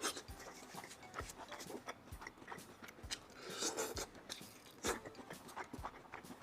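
Close-miked eating: a person chewing and biting food, with many short crunches and clicks and a longer crunching burst about halfway through.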